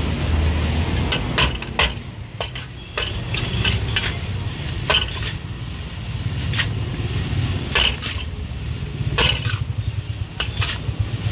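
Noodles stir-frying in a large wok: a metal utensil scrapes and clanks against the pan every second or so over a steady sizzle. A low rumble runs underneath.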